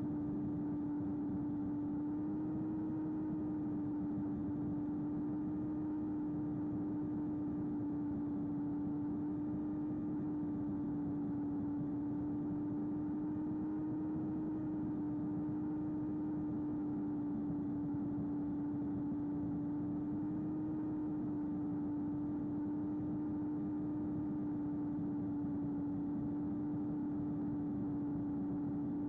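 Small flying wing's electric motor and propeller humming steadily at cruise throttle, its pitch wavering slightly, over a constant rush of wind.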